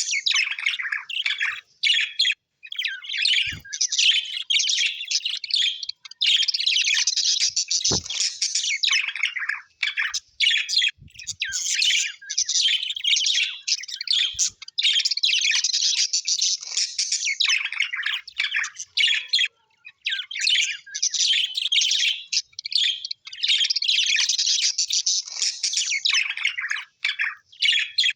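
Small parrots chattering and chirping, a dense rapid twitter in long runs broken by short pauses, with a faint knock about eight seconds in.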